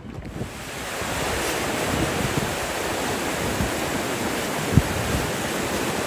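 River rapids rushing: a steady noise of flowing water that swells over the first second and then holds, with wind buffeting the microphone in a few low thumps.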